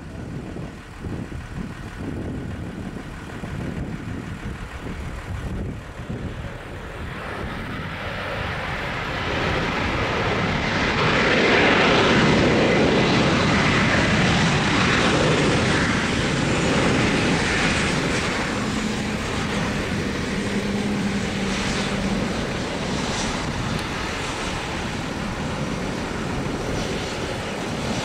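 Embraer 195 jet's turbofan engines during the landing roll-out, a low rumble that swells into a loud, broad jet noise about ten seconds in and eases off after about eighteen seconds. A steady hum joins for a few seconds past the middle.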